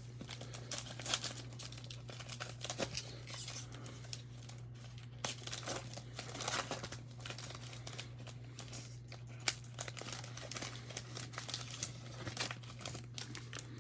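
Foil wrapper of a trading-card pack crinkling and tearing as it is opened, in irregular crackles.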